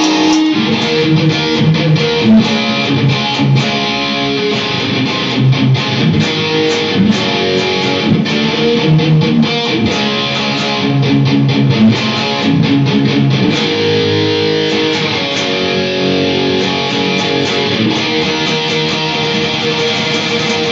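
Electric guitar from a Squier Stratocaster, played through a Marshall JVM410H valve amp, playing a rock lead over a held chordal layer. It plays quick runs of picked notes for the first dozen seconds or so, then settles into longer held notes.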